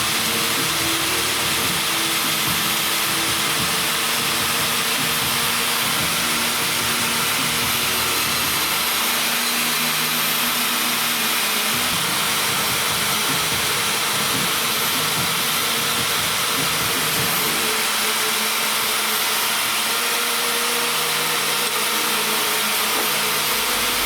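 A steady rushing machine noise at an even level, with background music faint underneath.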